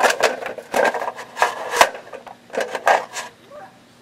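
Handling noise in several short bursts: the rustle of a nylon mesh stuff sack and scraping clinks of a thin aluminum Caldera Cone windscreen and pot being set down over a small alcohol stove.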